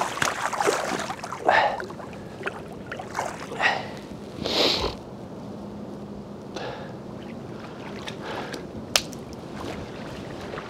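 Water splashing and sloshing in the shallows as a large mirror carp is released from a wet sling and swims off, with the biggest splash about four and a half seconds in. After that only soft, steady water and outdoor background with a few faint clicks.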